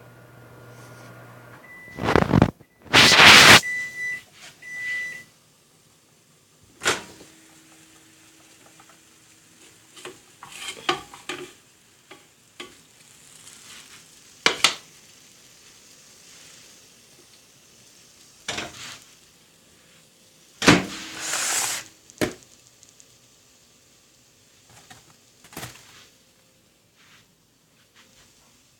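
Kitchen handling noises: a string of separate knocks, thunks and short clattering rustles. The loudest come a couple of seconds in and again about twenty seconds in, and a thin steady high tone sounds briefly near the start.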